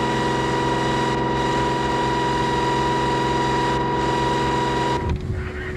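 Boat engine running steadily with a regular low throb, heard from the wheelhouse. About five seconds in it cuts off abruptly to wind buffeting the microphone.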